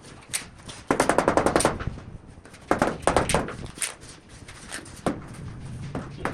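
Two bursts of rapid sharp knocking, about a dozen strokes a second and each lasting under a second, with single knocks before and after.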